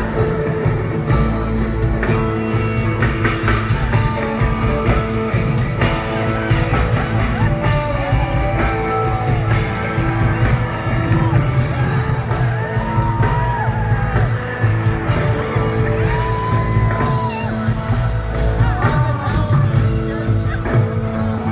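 Live rock band jamming, heard from within the audience: a dense, steady low end of bass and drums under a lead line that slides up and down in pitch.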